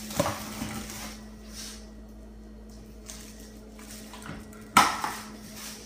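A steady low hum with a few light handling clicks, then one sharp clunk about five seconds in, like a door in a kitchen being shut.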